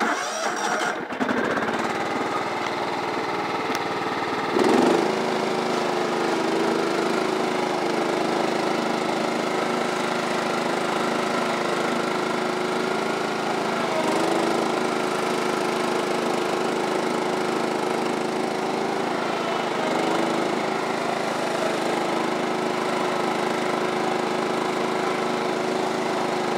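John Deere GT225 lawn tractor's Kohler CV15S 15-horsepower single-cylinder engine starting up and running steadily. There is a brief rise in level about five seconds in, and slight shifts in pitch a couple of times later on.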